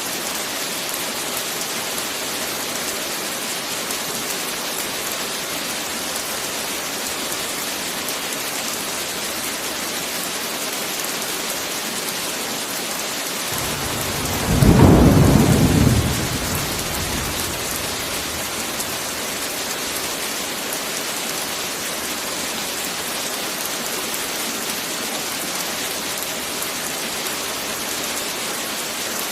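Steady heavy rain hiss, with one rumble of thunder about halfway through that swells for a couple of seconds and fades back into the rain.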